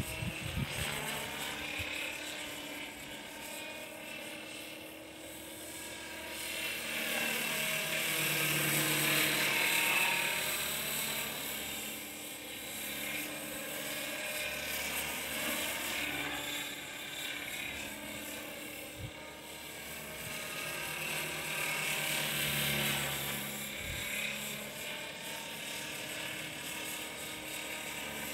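LaHeli Sniper radio-controlled model helicopter in flight: a steady motor-and-rotor whine whose pitch slides up and down as it manoeuvres. It swells loudest twice, about a third of the way in and again past two-thirds, as it passes closer.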